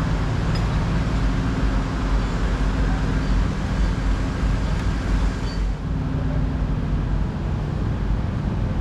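An engine running steadily, a low hum under a broad hiss; the hiss lessens about six seconds in.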